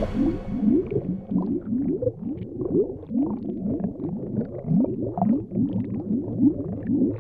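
Underwater bubbling sound effect: a steady run of low bloops, about four a second, each rising in pitch.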